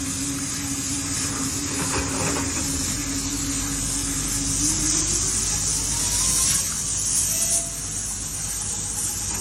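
Diamond wire saw machines cutting stone: a steady motor hum that rises in pitch about three seconds in, over a constant hiss from the running wire.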